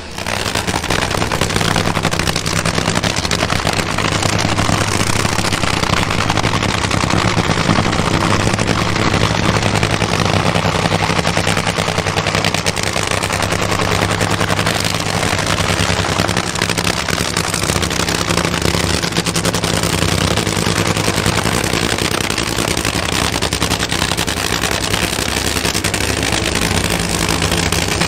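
Supercharged nitromethane drag-racing V8 running at a steady idle, its pitch unchanging with no revs.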